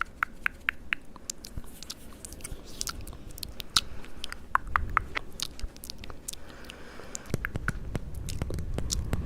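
Close-miked ASMR mouth sounds: quick, irregular wet clicks and lip smacks, several a second, over a low handling rumble.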